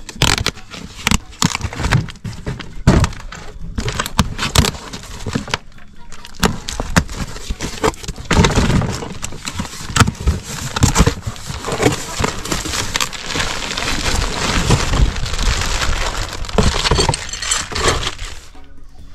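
Cardboard shipping box being torn open by hand: packing tape and cardboard ripping with sharp crackles and snaps. About eight seconds in it turns into a longer, steadier run of cardboard scraping and rustling as the box is handled and searched inside, which stops near the end.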